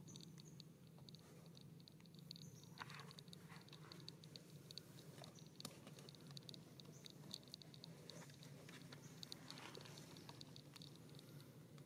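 Faint background ambience: a fast, even high ticking in short runs over a low steady hum, with a few scattered soft clicks.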